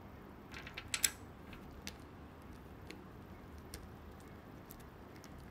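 Small plastic pieces of a magnetic Meilong 4x4 M speedcube clicking as they are fitted into the partly assembled cube: a quick cluster of clicks about a second in, the loudest, then a few single clicks spaced out.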